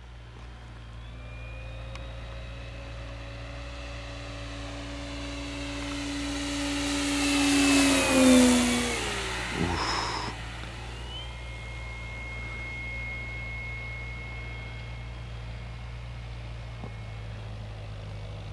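Electric RC warbird (brushless outrunner motor turning an 18-inch three-blade propeller) making a low fly-by. The motor whine and prop hum build for about eight seconds and drop in pitch as it passes, then fade to a steadier distant hum.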